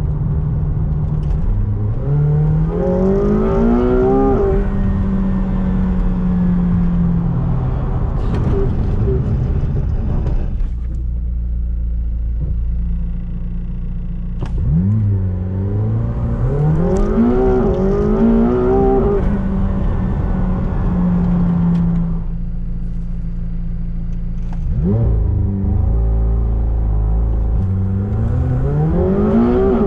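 McLaren 720S Spider's 4.0-litre twin-turbo V8 under hard acceleration, heard from inside the cabin, three times. Each time the engine note climbs and drops back at each quick upshift of the seven-speed dual-clutch gearbox. Between the runs the engine settles to a lower steady note.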